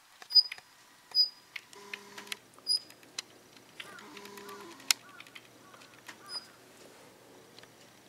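Daurian redstart giving short, thin, high "hiit" calls, four in all, the loudest about half a second in, with a few dry clicking notes in between.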